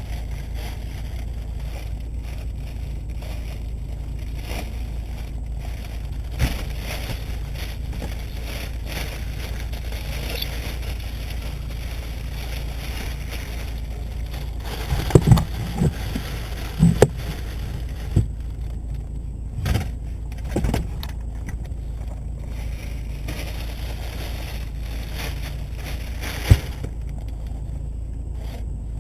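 Knocks and clatters of a walker being handled and loaded at a car, in a cluster in the middle and one sharp knock near the end, over a steady low rumble.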